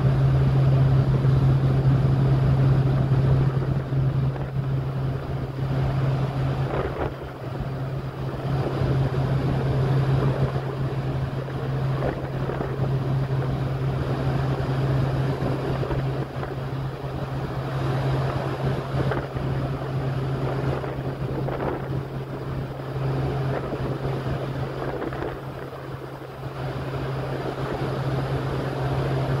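Steady low hum of a large cruise ship under way, with the rush of its churning wake and wind buffeting the microphone in uneven gusts.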